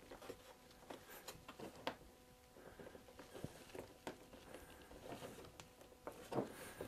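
Faint, scattered small ticks and rubs of hands pressing and steadying a glued plywood strip on a plywood panel, over a faint steady hum.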